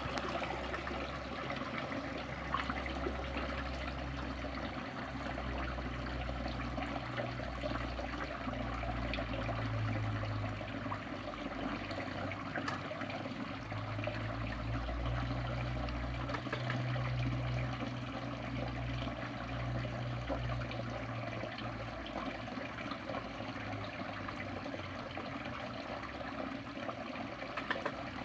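Steady trickling and splashing water at a fish pond, with a low rumble that comes and goes.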